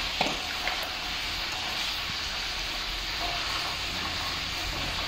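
Steady hissing noise with a low hum beneath, and two light knocks in the first second.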